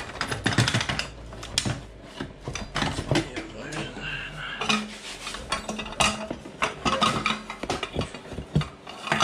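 Irregular metal clanking, scraping and knocking as the stock exhaust header pipe of a Yamaha Raptor 700 ATV is wiggled and yanked free of the engine and frame.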